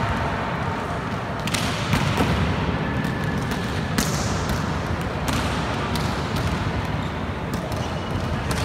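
Volleyballs being hit in a warm-up: several irregular sharp slaps of hands and forearms on the ball and balls landing on the hard court floor, the loudest about four seconds in, echoing in a large hall over a steady background din.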